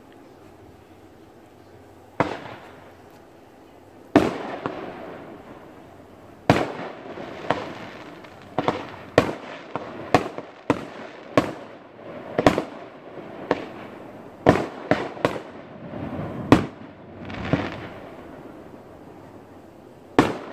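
Aerial fireworks bursting: about fifteen sharp bangs, each with a short fading rumble. They come singly at first, then thick and fast through the middle, with a last lone bang near the end.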